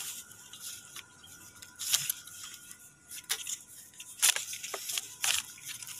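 A few short clicks and rustles of plastic as a thin white plastic tube is pushed by hand onto a small metal nipple of a petrol pump's submersible turbine pump.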